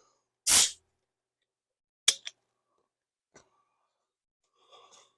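A short, sharp hiss about half a second in, typical of air being let out of a compression gauge through its release valve after a reading, followed by a couple of light clicks.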